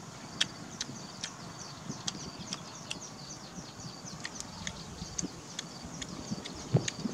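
Small animals chirping: rapid, high-pitched chirps and sharp clicks repeating throughout, with a single low thump near the end.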